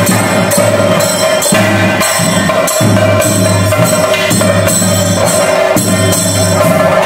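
Chenda drums beaten with sticks in continuous, loud ritual drumming, with a steady held tone sounding under the strokes.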